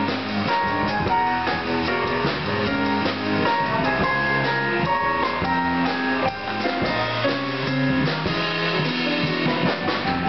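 Live instrumental trio of keyboard, upright double bass and drum kit playing a continuous tune.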